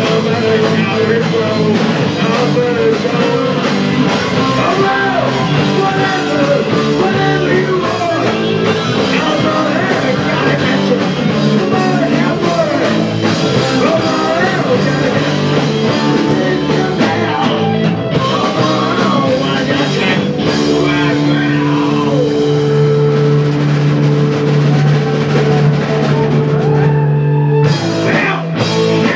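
Live rock band playing loud, with electric guitars, bass and a drum kit and a singer's voice over them. Later the band holds long, steady chords, breaks off briefly, and comes back in with a few sharp hits near the end.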